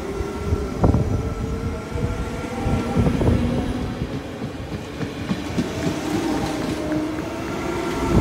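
NS Sprinter electric train running alongside the platform close by: a steady electric motor hum of several held tones, with a few sharp clicks of wheels over the rails.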